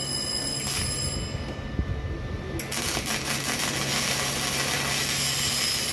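MIG welding arc crackling steadily as a replacement coil spring bucket is welded onto a Jeep axle, starting a little under three seconds in.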